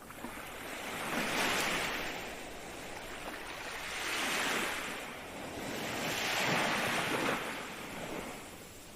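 Ocean waves breaking and washing in, three swells of surf that rise and fall, the last fading out near the end.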